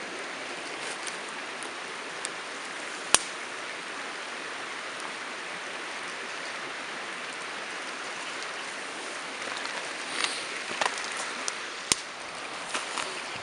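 Wood fire crackling, with scattered sharp pops, a loud one about three seconds in and another near the end, over a steady rushing hiss.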